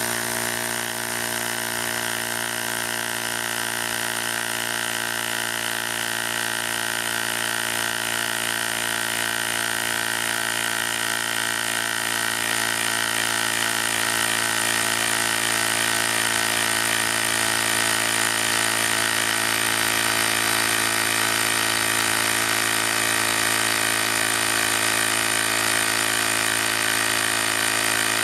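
Cordless battery-powered tire inflator's compressor running steadily, pumping air into a tire. It gets slightly louder about halfway through.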